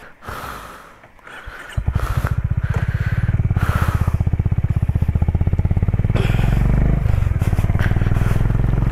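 Single-cylinder engine of a Honda CB350 H'ness motorcycle comes in abruptly about two seconds in and runs with an even, rapid thump. The sound grows heavier past the middle as the bike gets under way again.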